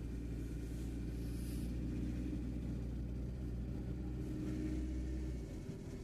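Engine and road noise of a moving van heard from inside the cabin: a steady low drone. The deepest part of the drone drops away near the end.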